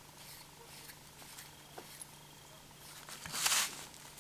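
Small brass tap parts being handled and screwed together by hand: a few faint clicks, then one short rasp about three and a half seconds in.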